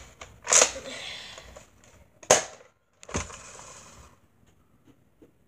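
Toy blaster clacking three times, about half a second, two and a quarter, and three and a quarter seconds in. Each sharp snap is followed by a short hissy rustle, and the last of them dies away about four seconds in.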